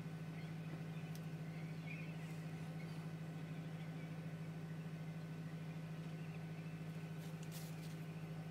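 A steady low hum with faint room noise, made up of several even tones. A few faint soft ticks or rustles come about a second in and again near the end.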